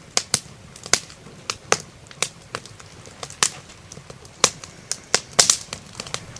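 Wood fire crackling in a woodstove: irregular sharp pops and snaps, about one or two a second, some louder than others.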